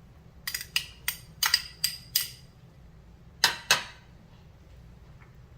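Serving utensil clinking and tapping against a mixing bowl as carrots are added: six quick clinks in under two seconds, then two more about a second later.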